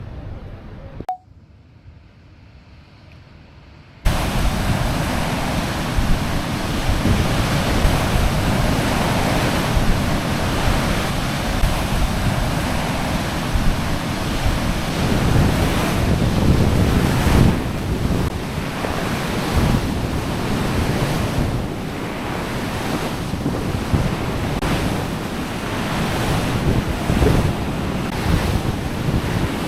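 Sea waves washing in and breaking on the shore, with wind buffeting the microphone. The sound starts suddenly about four seconds in, after a quieter stretch, and swells and gusts unevenly.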